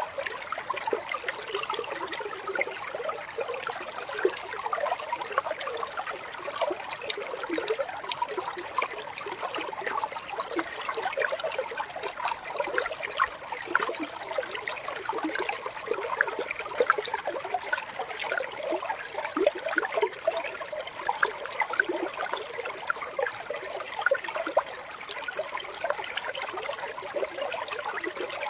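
Water trickling and babbling steadily, a continuous patter of small splashes.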